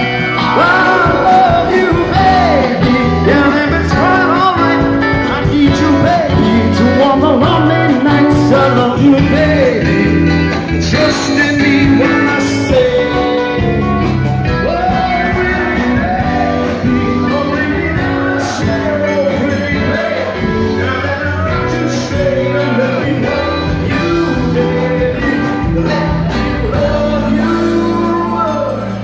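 Live band playing an upbeat rock-and-roll dance number, with a singer, electric guitar, bass and drums, loud and steady.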